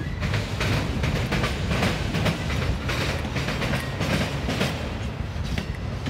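Autorack freight cars rolling past on the rails: a steady low rumble with irregular sharp clicks of the wheels over the rail joints.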